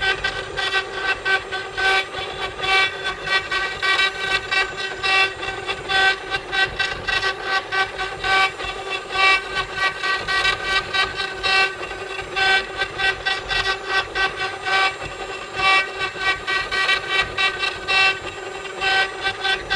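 CNC wood-carving machine running, its motors giving a pitched whine that pulses on and off in quick, uneven strokes as the machine carves.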